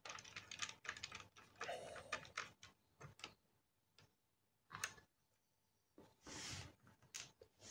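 Faint light clicks and taps of a small precision screwdriver on the screws and metal parts of a laptop motherboard as the screws are backed out, most of them in the first few seconds, with a short soft rustle near the end.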